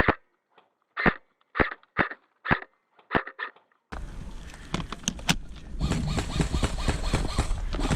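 Airsoft rifle firing single shots: sharp pops about half a second apart against dead silence. About four seconds in, outdoor field noise with rustling and scattered clicks cuts in abruptly.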